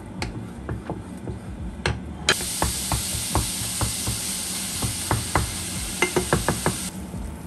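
Minced meat sizzling in a frying pan of hot fat, stirred with a wooden spatula that taps and scrapes against the pan. The sizzle starts suddenly about two seconds in and cuts off near the end, with a quick run of taps just before it stops.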